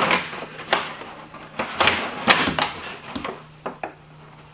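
Irregular clicks, knocks and scrapes of a one-handed bar clamp being handled and squeezed down to hold a Formica sheet to the plywood.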